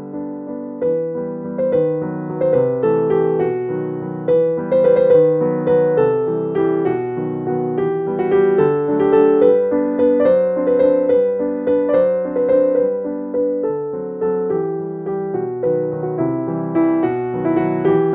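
Background piano music: a gentle melody of struck notes that ring and fade, played at a steady pace.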